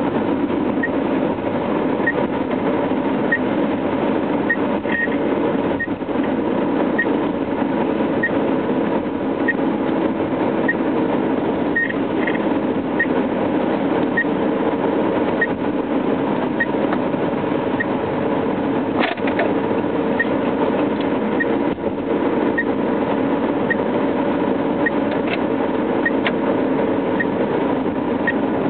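A 1997 Subaru Legacy's dash warning buzzer, behind the gauge cluster, sounds short high beeps about once a second, over the steady engine and road noise inside the moving car. It is beeping on its own with the door indicators off: a fault that is not the door sensors and whose cause is unknown.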